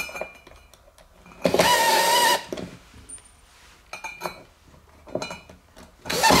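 Cordless drill driving screws through a boat seat's swivel mounting plate into its plastic base: a whir lasting about a second, starting about one and a half seconds in, and another starting near the end, with small clicks and knocks in between.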